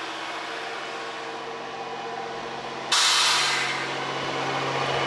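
Diesel railcars, a JR Hokkaido H100 DECMO and a KiHa 40, idling at a station with a steady engine hum. About three seconds in it turns louder, with a burst of air hiss that fades within a second, then steady engine and fan noise.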